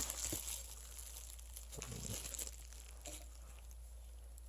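Faint handling noise: soft rustling and a few light clicks as shifter parts are handled, over a steady low hum.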